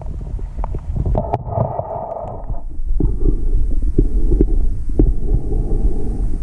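Muffled underwater sound recorded by a camera as a swimmer moves through river water: a steady low rumble with scattered clicks and knocks, and a muffled humming noise from about a second in.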